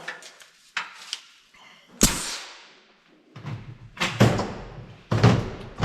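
A sharp bang about two seconds in that rings and dies away, then a few more knocks and thuds near the end, with light clicks before it.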